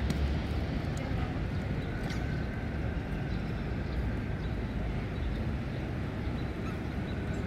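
Steady low background rumble, with no distinct sound standing out.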